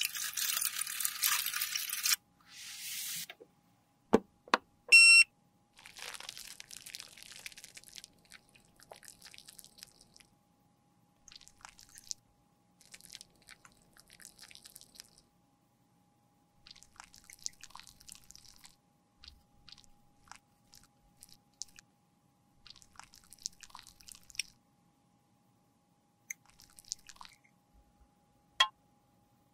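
A thin stream of alcohol pours onto metal tools in a stainless steel tray for about two seconds. Around four to five seconds in there are two sharp knocks and a brief metallic clink. A long run of short, soft crunching scrapes follows as a metal spatula scrapes crumbled lipstick in its tube.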